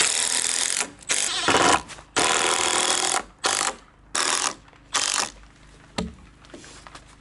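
Makita cordless impact driver driving screws into a timber ledger board in six bursts: three long runs, then three short ones as the screws seat. A single knock follows about six seconds in.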